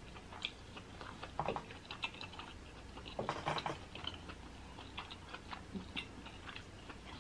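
A person chewing food: soft, irregular clicks and small crunches of eating, busiest about three seconds in.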